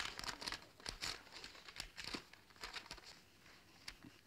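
Wrapping paper and letter paper crinkling and rustling in irregular bursts as a wrapped parcel and a letter are handled and opened, fading off near the end.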